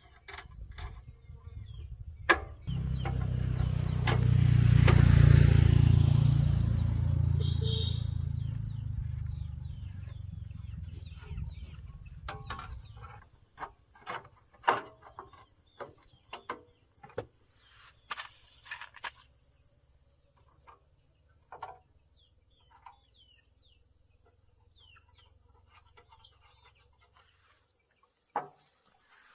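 A low engine rumble swells up a couple of seconds in and slowly fades away over about ten seconds, like a vehicle passing by. Scattered sharp clicks and bird chirps follow, over a faint low hum.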